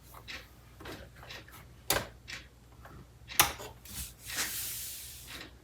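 Scattered small knocks and clicks of under-cabinet LED light bars being handled and fitted into place, the loudest about two and three and a half seconds in, with a scraping, rustling hiss about four seconds in.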